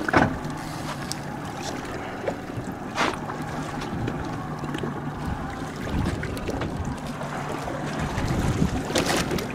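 Boat engine running steadily at low speed, a low even hum, with wind on the microphone and water noise. A few sharp knocks come just after the start, about three seconds in and near the end.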